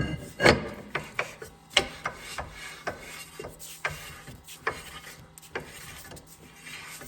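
Hand ratchet wrench worked in short strokes: a run of sharp metal clicks, irregular and about one to two a second, with rasping between them.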